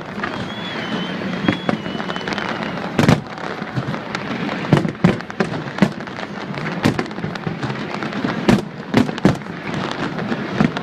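Aerial fireworks bursting in a rapid, uneven barrage of sharp bangs, with a thin wavering whistle in the first few seconds.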